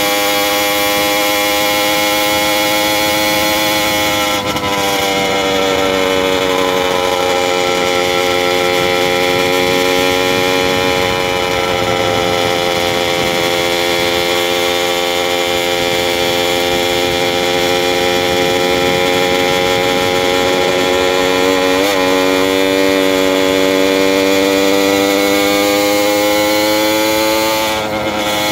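Small engine of a motorized bicycle running steadily under way, its pitch sagging and picking up a few times with the throttle, over wind and road noise.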